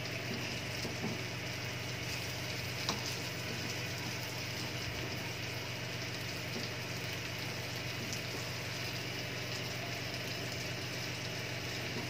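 Pieces of dried ribbonfish, coated in chilli and turmeric, sizzling steadily in hot oil in a pan, with a few light taps of the utensil as the pieces are turned over.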